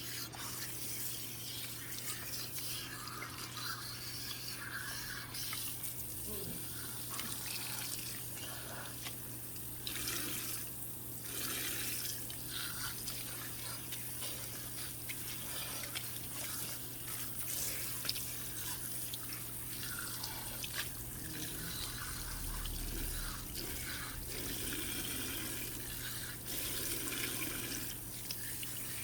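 Running water from a salon shampoo-bowl tap, rinsing hair relaxer out of hair in the sink. A steady low hum runs underneath.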